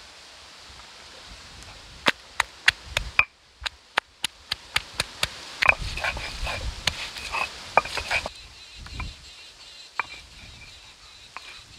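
Stone roller knocking on and crushing green chillies against a stone grinding slab: a run of sharp knocks, about three to four a second, starting about two seconds in and stopping about eight seconds in, with a low grinding rumble under the later strokes.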